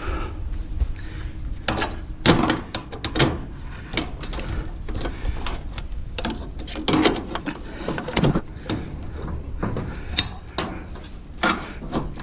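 Aluminum appliance part being wrenched and pried apart by hand: irregular metal knocks, clanks and rattles, with sharper hits now and then, as the tough aluminum resists tearing.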